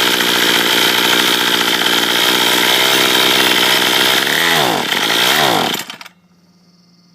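Troy-Bilt TB32 EC two-stroke string trimmer engine running under throttle with the choke in the open third position. Its pitch sags and picks up twice near the end, then it dies away about six seconds in. This is the engine bogging down, which the owner puts down to a carburettor set up for higher altitude.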